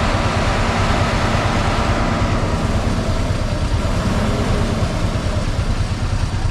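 Motorcycle engine running at low speed in a traffic jam, a steady rumble with surrounding traffic noise.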